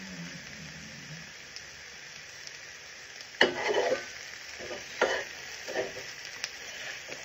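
Ham and vegetables sizzling steadily in a stainless steel frying pan. A little over three seconds in, a utensil starts stirring and turning the food, with several scrapes and knocks against the pan about a second apart, the first one the loudest.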